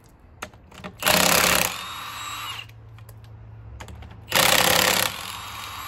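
Cordless impact wrench hammering on a truck wheel's lug nuts, loosening them, in two short bursts: one about a second in and another past four seconds. Between the bursts it runs more quietly with a steady hum.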